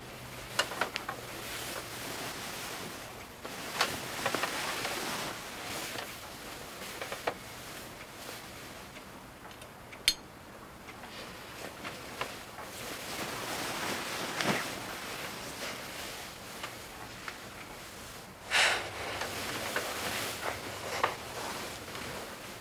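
Bedding and nightclothes rustling as someone moves about and settles in a bed, with small knocks. There is one sharp click about ten seconds in from a bedside lamp switch.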